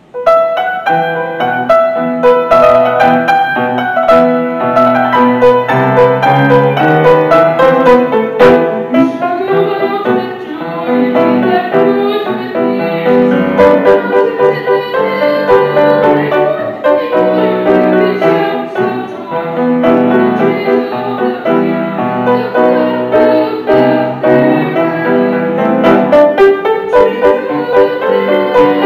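Piano playing a hymn accompaniment.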